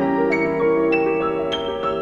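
Instrumental background music: a piano-like keyboard playing a melody of single struck notes, about three a second, the melody stepping upward in pitch.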